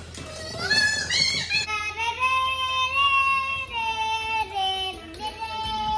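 A young child singing long, high "la la la" notes that step down in pitch, after a short rising squeal about a second in.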